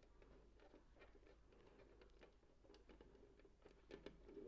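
Near silence: quiet room tone with scattered faint light clicks as fabric is handled under a stopped sewing machine's presser foot.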